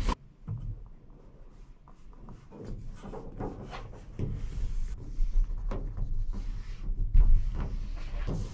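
Foil-faced butyl sound-deadening mat crinkling and crackling as it is handled and pressed by hand onto a car's sheet-metal roof panel, with irregular crackles and clicks and a few dull thumps as the thin roof metal is pushed. The loudest thump comes about seven seconds in.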